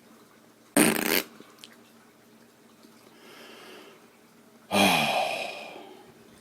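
Comic fart sound effects: a short burst about a second in, and a longer one near the end that falls in pitch and fades out.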